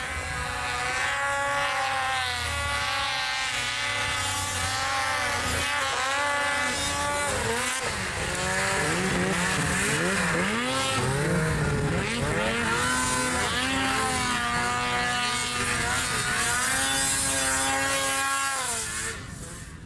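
Several vehicle engines revving hard together, their pitches rising and falling and crossing one another, then fading out at the end.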